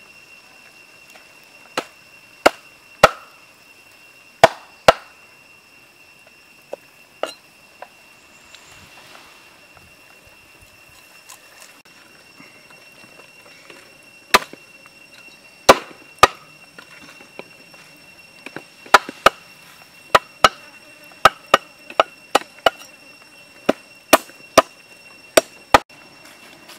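Heavy cleaver chopping a chicken on a round wooden chopping board: sharp single chops, five in quick succession early on, then after a pause a longer run of chops at about two a second.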